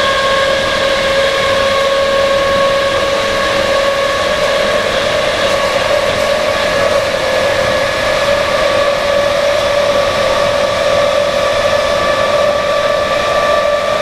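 Class 319 electric multiple unit's traction motors whining loudly over rail noise, heard from inside the carriage. The whine is a steady chord of tones that slowly rises in pitch as the train gathers speed.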